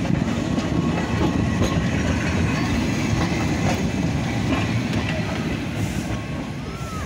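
Manx Electric Railway tram, motor car No. 5 with its open trailer, rolling past on the rails. Its wheels rumble and clack over the track, easing off slightly as it moves away.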